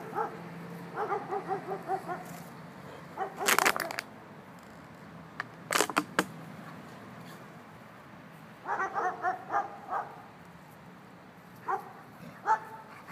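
Dogs barking and yipping at each other while play-fighting, in bursts of several quick notes, with a couple of louder, sharper barks.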